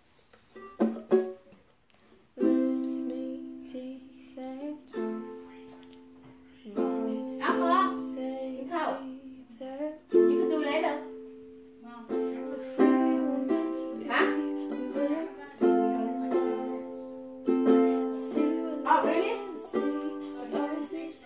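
Ukulele strummed in repeated chords, starting about two and a half seconds in, after a few light taps on the instrument.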